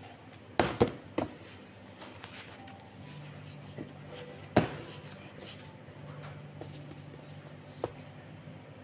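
A few sharp knocks: three in quick succession in the first second, a loud single one a little past the middle and a light one near the end. A low steady hum comes in about a third of the way through and keeps going.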